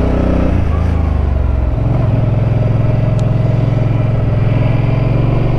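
Suzuki Boulevard M50's V-twin engine running under way as the motorcycle climbs. Its note changes about half a second in and again just under two seconds in, then holds steady.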